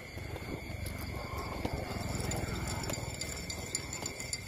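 Three-week-old puppies suckling at their mother, with irregular wet smacking clicks and a few brief small squeaks.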